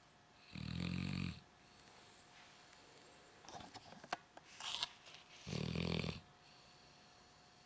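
A sleeping dog snoring: two deep snores, each under a second long and about five seconds apart, with a few faint clicks between them.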